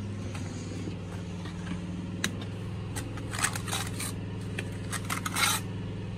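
Steel brick trowel scraping mortar across a concrete slab in a few short strokes, about three and a half and five seconds in, over a steady low engine hum.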